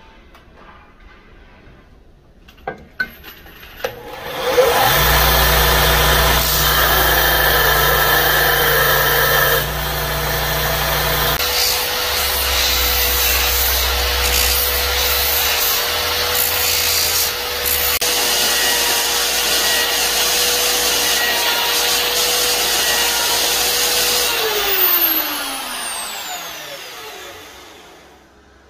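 Motor-driven abrasive sanding disc grinding a knife's wooden handle scales and steel, a loud steady grinding with a constant whine, starting after a few quiet seconds with light clicks. Near the end the motor is switched off and its whine falls in pitch as the disc spins down.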